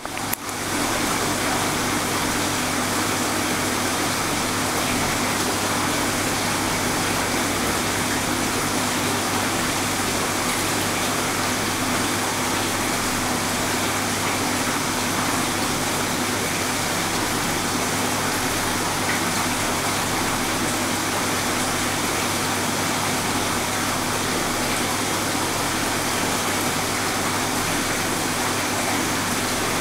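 Steady rush of circulating water with a low, constant hum from a reef aquarium's pumps.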